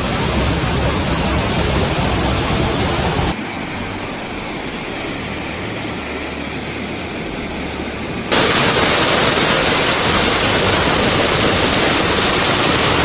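Rushing floodwater as a steady noisy roar, cutting abruptly to a quieter stretch about three seconds in and to a louder one about eight seconds in.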